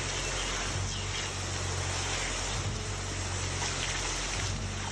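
Steady low hum of a concrete pump's engine running, under an even hiss of flowing water.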